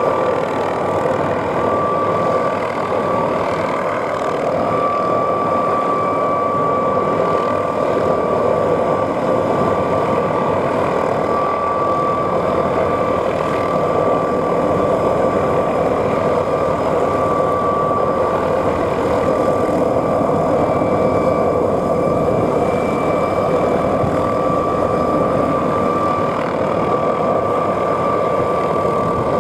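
McDonnell Douglas MD520N NOTAR helicopter hovering: its turbine gives a steady high whine over dense, even engine and rotor noise.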